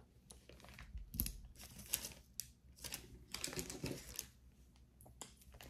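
Faint, irregular clicks and light clinks of jewelry pieces being handled and set down.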